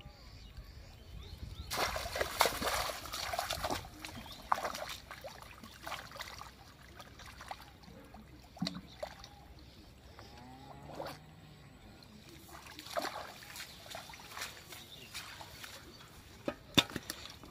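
Shallow muddy water splashing and sloshing as a bamboo plunge basket is worked into it and hands grope inside it for fish. The splashes come irregularly, loudest in a burst about two seconds in and again in a cluster near the end.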